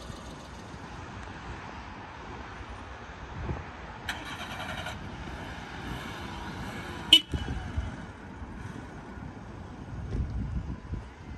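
Open-air parking-lot ambience with low wind rumble on the microphone. About four seconds in, a short pitched tone like a horn toot sounds for under a second. A little after seven seconds comes one sharp, loud click.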